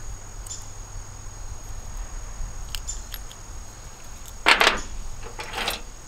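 Small metal hand tools clinking and clattering as they are handled and set down among other tools, with light clicks about three seconds in and a louder clatter about four and a half seconds in. A steady high cricket trill runs underneath.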